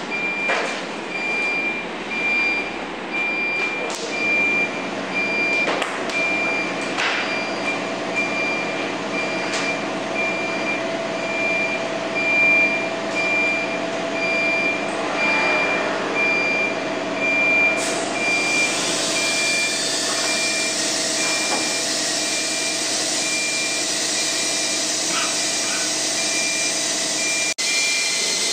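ATC CNC router on its test run: machine running with a pulsed high beep repeating throughout and a few sharp knocks in the first half. About two-thirds through, a loud, steady rushing noise starts and holds to the end.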